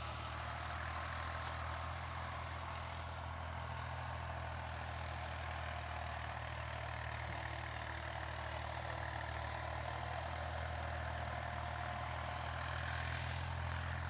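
A steady low engine drone with a faint hiss over it.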